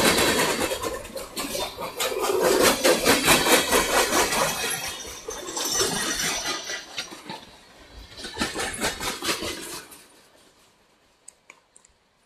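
Freight train of boxcars and covered hopper cars rolling past, its wheels clattering rapidly over the rails. The clatter fades out about ten seconds in as the end of the train goes by, leaving a few faint clicks near the end.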